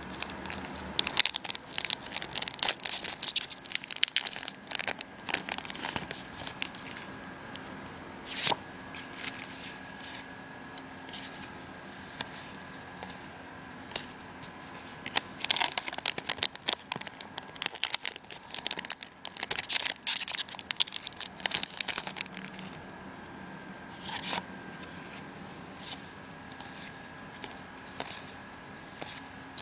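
Foil trading-card booster packs being torn open and crinkled in three loud bursts, with quieter clicks and rustles of cards being handled and flicked through in between.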